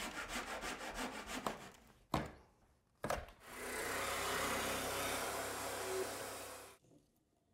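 A hand saw cuts the bottom of a wooden door casing in quick back-and-forth strokes, undercutting it so flooring can slide beneath. After a short break and a click, a jigsaw cuts a hardwood flooring board, running steadily for about three seconds before stopping.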